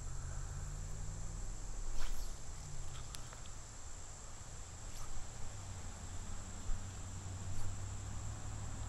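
Insects trilling steadily in one high, even tone over a low rumble, with a sharp click about two seconds in.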